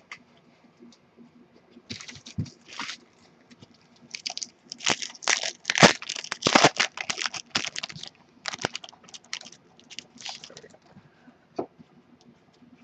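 Foil wrapper of a Topps Strata football card pack being torn open and crinkled by hand, in quick crackling bursts that are loudest about halfway through.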